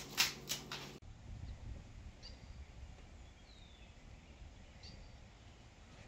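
Corn husks being torn off the ears for the first second, then quiet outdoor ambience: a low steady rumble with a few faint, short bird chirps, one of them a falling note.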